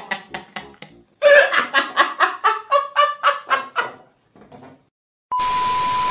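A man laughing in quick bursts, then a louder, high-pitched cackling laugh in rapid pulses of about four a second. About five seconds in, a TV-static hiss with a steady beep starts suddenly.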